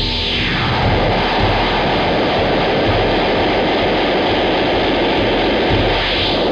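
Electronic music: a loud, dense wash of noisy synth hiss over a pulsing low bass. It sweeps down in pitch during the first second, and a rising sweep builds near the end.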